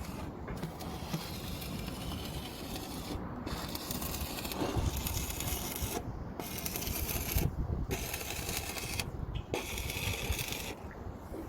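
Electric welding arc crackling in about five short runs of one to three seconds each, stopping briefly between runs.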